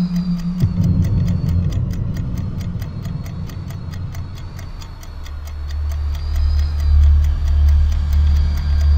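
Steady clock ticking from a countdown timer's soundtrack, over a low, eerie drone that shifts under a second in and swells from about five seconds in.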